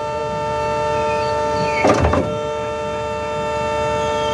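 Concrete pump running with a steady, multi-tone mechanical whine, and one heavy clunk about two seconds in. It is being run in reverse to push the mortar back out so it drops below the machine.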